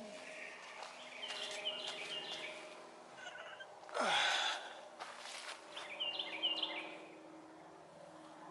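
A songbird singing short repeated chirping phrases, twice, over faint outdoor background noise, with one brief loud whoosh falling in pitch about halfway through.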